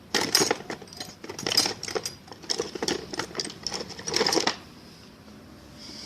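Rapid metallic clicking and clattering in irregular bursts for about four and a half seconds, then it stops: hand tools and metal parts being worked while a washing machine's gearbox is put back together.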